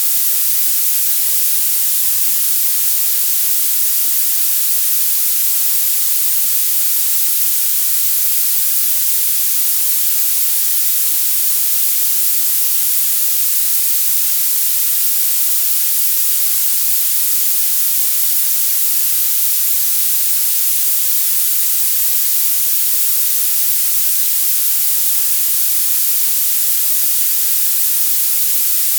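Violet noise: a steady, loud, very high-pitched hiss, its energy rising steeply toward the highest frequencies with almost no low end.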